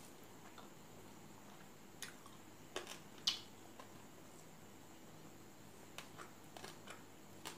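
Fingers mixing rice and pork curry on a steel plate: soft squishing with a few small sharp clicks, the loudest about three seconds in, over a faint steady hiss.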